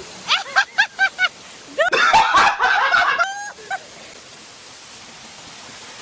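A group of people laughing: a quick run of short laughs, then a louder burst of several voices laughing together, dying away after about three and a half seconds. A steady rush of waterfall water runs underneath.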